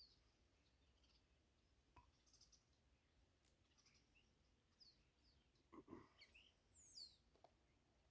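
Near silence, with faint birdsong: scattered short chirps and whistles. There is a soft thump about six seconds in.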